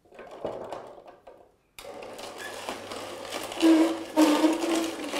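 Beetroot pieces knock into the feed chute of a vertical slow juicer, then its motor starts abruptly about two seconds in and runs with a steady whine while loud crunching comes from the auger crushing the raw beetroot. The crunching means the pieces are on the large side for the juicer and should be cut smaller.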